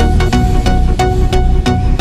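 Background electronic music with a steady beat, about three beats a second.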